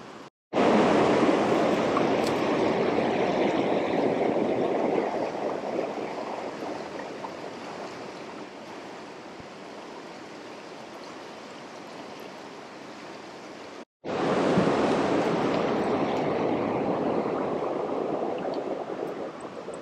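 Rain-swollen river rushing over rocks close by, a steady noise of fast water. It breaks off to silence twice, about half a second in and near fourteen seconds, and each time comes back loud and slowly eases.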